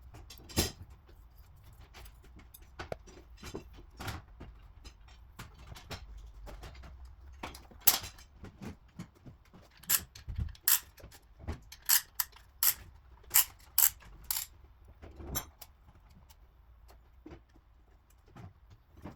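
Sharp metallic clicks, taps and clinks of hand tools and metal engine parts being handled, with a quick run of loud clinks in the middle.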